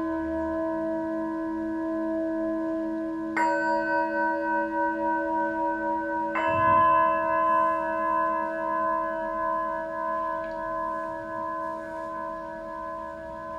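Tibetan singing bowls ringing in several overlapping tones, with two fresh strikes about three and six seconds in. The ringing pulses slowly as it sustains, then fades gradually.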